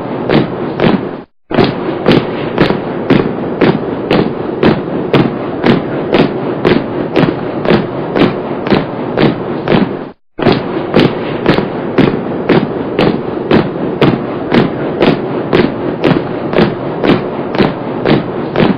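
A body of troops marching in step, boots striking the ground together about twice a second over a steady shuffle of many feet. The recording cuts out for a moment twice where the loop restarts.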